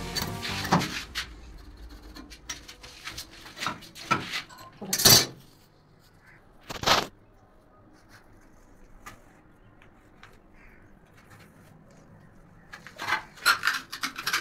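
Scattered sharp clicks and knocks of hard objects, the loudest about five seconds in and another about two seconds later, with a quick run of them near the end.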